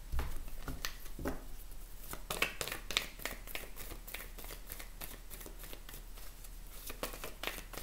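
A deck of oracle cards shuffled by hand: a run of quick, irregular soft clicks and flicks as the cards slide and slap together, with a couple of light thuds in the first second.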